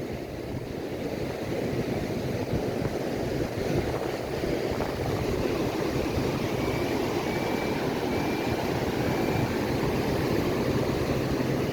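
Steady roar of ocean surf on an open Pacific beach, rising slightly in level. Four faint, short high notes come in the middle.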